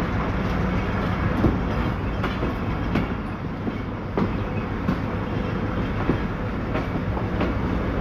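Passenger train coach rolling slowly out of a station, heard from its open doorway: a steady low rumble from the running gear with irregular clicks and knocks as the wheels pass over rail joints and points.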